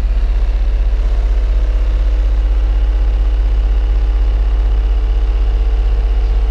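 Car audio subwoofers playing a steady, very deep bass tone at full power for an SPL meter run.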